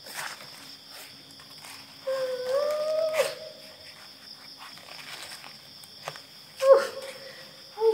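A drawn-out vocal call, rising slightly in pitch, about two seconds in, then a short, louder call that drops off near the end. Both sound over a steady high-pitched whine.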